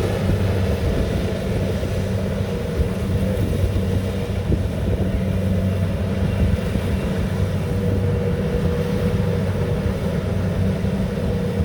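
Rice combine harvester's engine running steadily, a continuous low drone with no change in speed.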